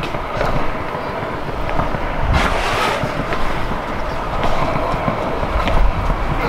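BMX bike rolling along a concrete sidewalk: steady tyre rumble and wind noise, with a few sharp clicks and one brief louder rush about two and a half seconds in.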